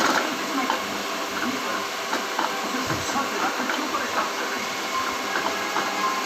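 Motor-driven meat mincer running: a steady mechanical whir with a constant hum and scattered light clicks.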